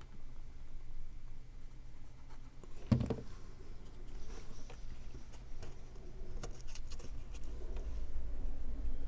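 Cardstock pieces being handled and pressed into place on a tabletop, with rustles and light taps and one sharper tap about three seconds in. A low rumble of a passing truck outside builds toward the end.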